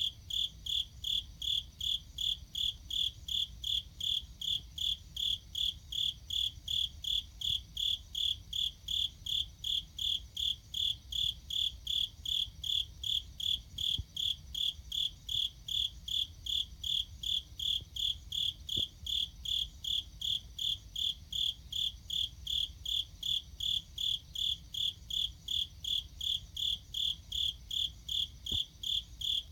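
A cricket chirping steadily: short high-pitched chirps repeated evenly, a little over two a second, without a break.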